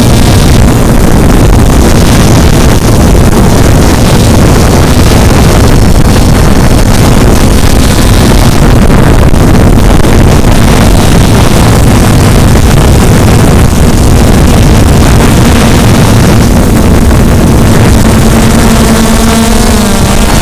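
QAV400 quadcopter's motors and propellers running, heard loud from the camera riding on the craft, a steady hum mixed with rushing wind on the microphone. Near the end the hum wavers in pitch as the motors change speed.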